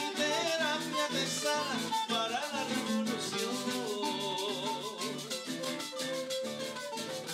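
Background music: upbeat Latin dance music in a salsa style, with percussion keeping a quick, steady beat under a melody line.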